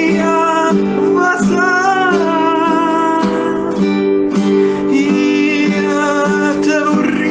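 Music: acoustic guitar strumming and picking chords, accompanying a Neapolitan song, with a melody line moving above it.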